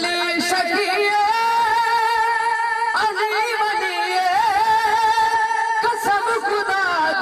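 A man singing a Punjabi manqabat, a devotional song in praise of Ali, into a microphone. He holds long, wavering notes, with new phrases starting about three and six seconds in.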